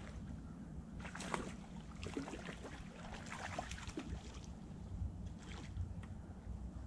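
Hooked smallmouth bass thrashing and splashing at the surface in shallow water as it is landed: a run of irregular short splashes, heaviest between about one and four seconds in, with another near the end.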